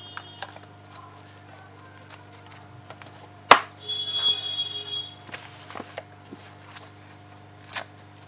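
A small cardboard product box being opened by hand, with scattered taps and rustles of packaging. There is one sharp snap about three and a half seconds in, followed by a short squeak lasting about a second. A steady low hum runs underneath.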